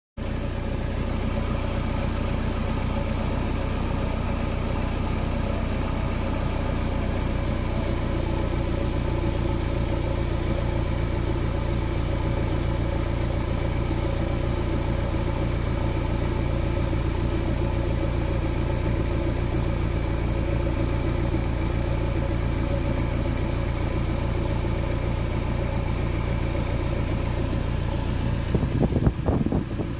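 Car engine idling steadily, heard close at the exhaust tailpipe. Near the end, a few irregular knocks come over the running engine.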